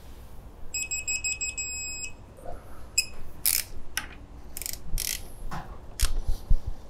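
Digital torque wrench beeping rapidly for about a second and a half, its signal that the set torque has been reached on a crankcase bolt. It is followed by a run of sharp clicks about every half second from the wrench's ratchet as it is worked on the bolt.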